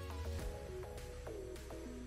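Background music: a melody of short plucked-sounding notes over a steady low bass.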